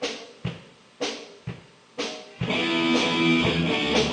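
Count-in of sharp ticks about two a second, heavier and lighter in turn, then a live rock band comes in about two and a half seconds in with strummed electric guitar, bass and drums.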